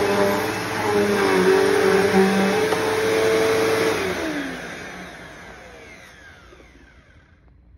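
Bagless upright vacuum cleaner running over an area rug with a steady motor whine, then switched off about four seconds in, its motor winding down in a falling whine that fades out.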